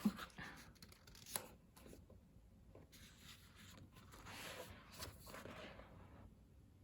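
Pages of a photobook being turned: soft paper swishes and rustling, with a light tap about a second and a half in.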